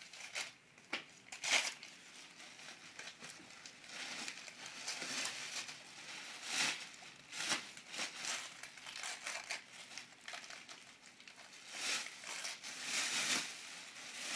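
Gift packaging crinkling and tearing in irregular bursts as a small present is pulled open by hand.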